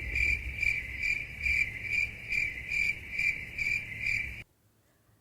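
Cricket chirping in a steady rhythm, a little over two chirps a second, over a low rumble; it cuts off suddenly near the end.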